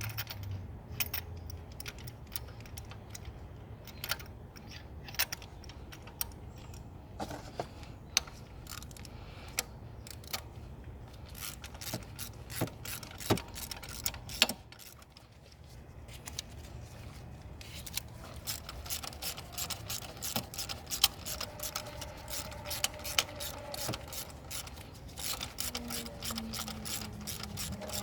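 Irregular metallic clicks and rattles of hand tools being worked, turning into a quick, dense run of ratchet-like clicking in the second half.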